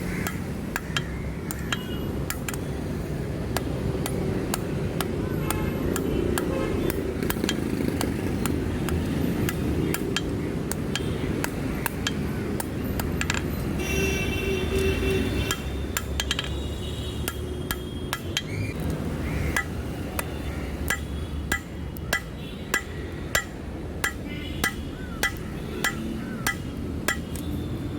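Hammer blows on steel at an anvil, ringing metallic strikes, settling near the end into a steady run of about two a second, over a steady low rumble.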